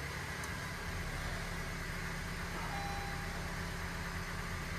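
2017 Honda CR-V's 1.5-litre turbo four-cylinder engine idling steadily with a slightly uneven low rumble. The engine has a misfire on cylinder 2, which the mechanic puts down to a weak ignition coil.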